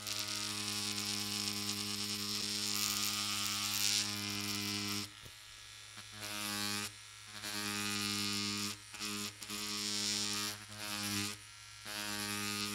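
Pen-style cartridge tattoo machine set at about 8 volts buzzing steadily as its medium beveler cartridge hammers into cased leather. About five seconds in it stops, then starts and stops again several times in short runs.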